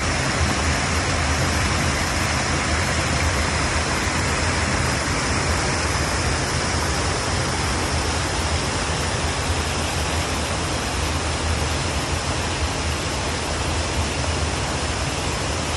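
Woodhams Creek running high and muddy, pouring out of a concrete culvert and rushing down over rocks: a loud, steady rush of white water.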